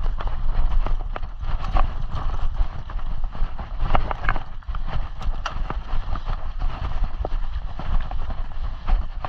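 Mountain bike rolling over a rough dirt trail: tyres crunching on dirt and gravel, with irregular rattles and knocks from the bike and handlebar mount over bumps and a constant low rumble from the ride's vibration.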